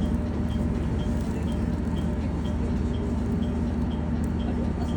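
ATS 'kin-kon' chime in a KiHa E130 diesel railcar, repeating about twice a second after the ATS alarm has been reset. It sounds over the railcar's steady low drone.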